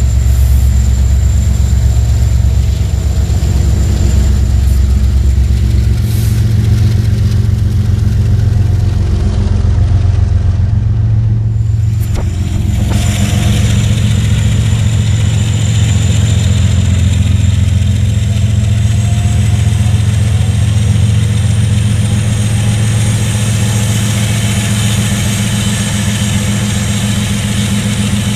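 Diesel freight locomotive engine running with a deep, steady drone and a fast, even pulse.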